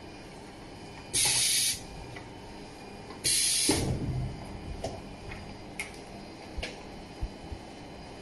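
Pneumatic press of a ZJ-50 blister-to-card heat-sealing machine cycling: two short hisses of compressed air about two seconds apart. The second hiss is followed by a low thud as the press moves, then a few light clicks.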